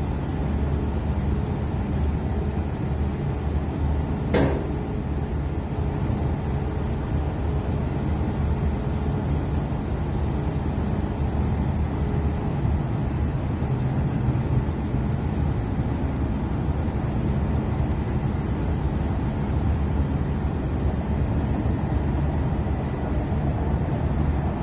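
Steady low rumble of a ship's engines heard from on deck while the ship is under way, with one sharp click about four seconds in.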